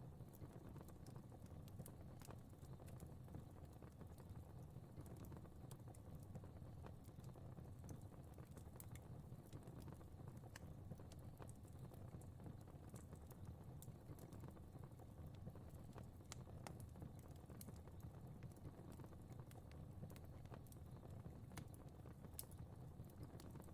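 Faint crackling fire: scattered small pops and snaps at irregular moments over a steady low rumble.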